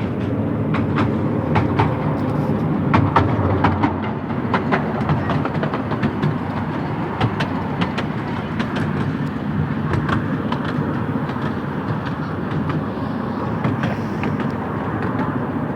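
Miniature railway train rolling along its track: a steady low rumble from the wheels, broken by sharp irregular clicks as they pass over the rail joints. The clicks come thickest in the first few seconds.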